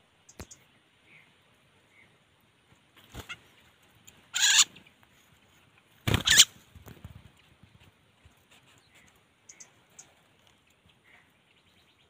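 Rustling and handling noise, three short brushing sounds about three, four and a half and six seconds in, the last the loudest. Faint short bird chirps come and go in the background.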